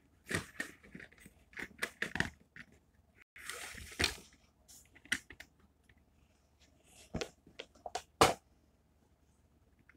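Cardboard packaging and a plastic display base being handled: rustles and clicks, then a scraping slide of the base out of the cardboard box a few seconds in. Two sharp knocks follow near the end, the second the loudest, as the model on its base is set down.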